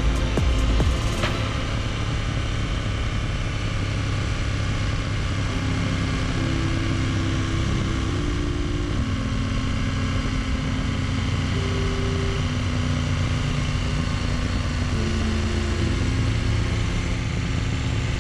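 Motorcycle riding at a steady cruise, its engine running under a constant rush of wind noise from the onboard camera.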